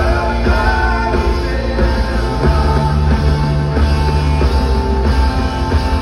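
Live band music played loud in a concert hall and heard from the audience: a heavy, steady bass that shifts note a couple of times under sustained chords.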